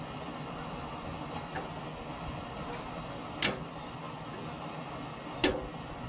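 Ford F-150 scissor jack being cranked up through its long extension rod and T-handle. Two sharp clanks come about two seconds apart, over a steady background noise.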